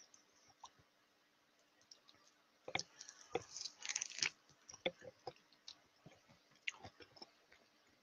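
Computer mouse and keyboard clicks, sparse and irregular, with a quick cluster of clicks and rustling about three seconds in.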